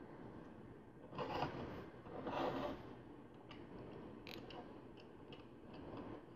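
Small plastic LEGO pieces being rummaged and slid about: two brief rustling scrapes about one and two seconds in, then a few light, scattered plastic clicks as pieces are handled and pressed together.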